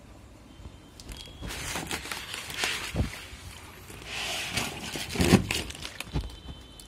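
Water-filled plastic bags of aquarium fish being handled and shifted: plastic crinkling in two stretches, with a few dull thumps, the loudest a little past five seconds.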